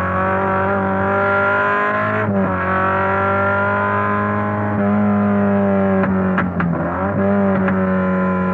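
Lotus 23 sports racing car's engine running hard at high revs, one steady note whose pitch dips briefly about two seconds in and again around six to seven seconds in. A few sharp clicks near six seconds.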